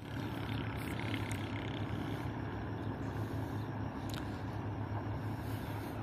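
Diesel locomotive of a freight train approaching from a distance: a steady low engine drone with faint open-air noise.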